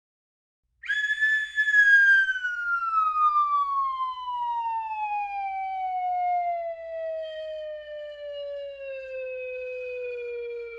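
Cartoon sound effect: a single whistle-like tone that starts about a second in and slides slowly down in pitch for around ten seconds, falling quickly at first and then levelling off.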